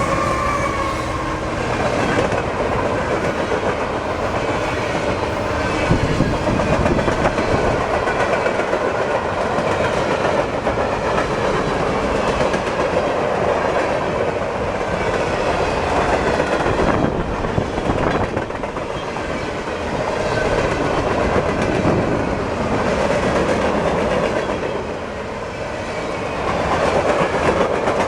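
Empty freight cars of a pipe train rolling past, their steel wheels clattering over the rail joints in a steady, loud rumble that swells and eases.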